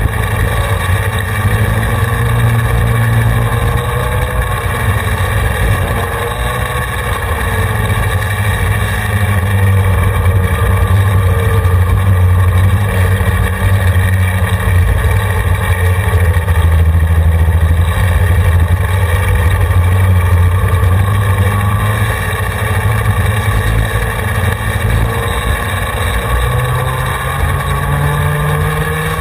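Racing go-kart engine heard from onboard, running at speed for the whole stretch, its pitch rising and falling as the kart accelerates and slows.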